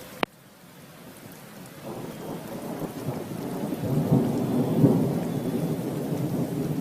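A sharp click right at the start, then a long roll of thunder that builds over a few seconds and stays loud, over a faint hiss of rain.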